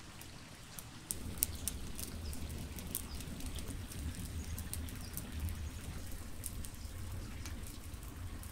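Wood fire burning in a clay tandir oven: the burning sticks crackle with many sharp, irregular pops. A low steady rumble comes in about a second in.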